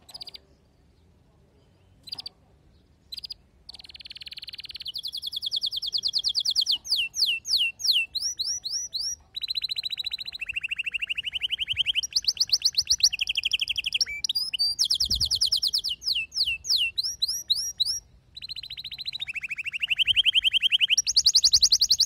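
Male canary singing: a few short chirps, then from about four seconds in a long song of rapid trills, each phrase a fast string of one repeated high note that switches to a new note and pitch every second or two, with brief breaks near the end.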